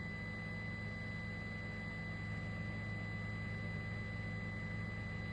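Helicopter running steadily: an even low drone with a thin high whine over it, no change throughout.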